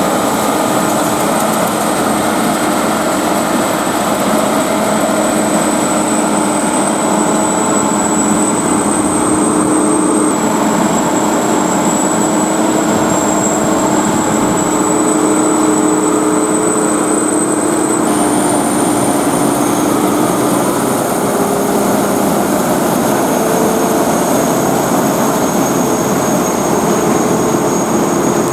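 Sakpattana corn combine harvester running steadily under load: the engine and threshing machinery make a dense, loud mechanical noise with a high whine on top. The sound changes abruptly twice, about ten and eighteen seconds in.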